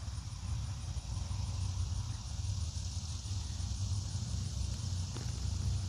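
Park ambience with a low, uneven rumble and a steady high-pitched insect drone, and a faint click near the end.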